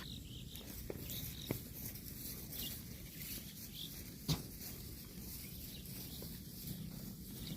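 Cow grazing: rustling and tearing at grass, with a few sharp snaps, the loudest a little past the middle.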